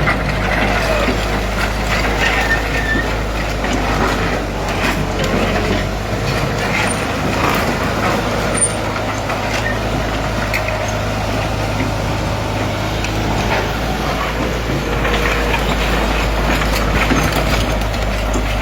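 Hydraulic excavator's diesel engine running steadily while it works, with scattered clanks and brief high squeals from the machine throughout.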